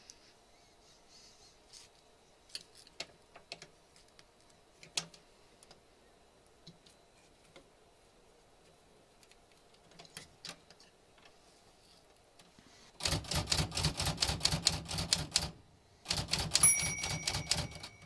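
Royal HH manual typewriter being worked hard. After a stretch of faint scattered clicks as the ribbon is handled, come two fast runs of typebar strokes at about six a second. In the second run the bell rings once, which is typical of the carriage nearing the end of the line.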